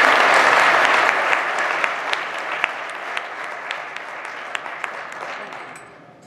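Audience applauding, loud at first and gradually dying away to a few scattered single claps near the end.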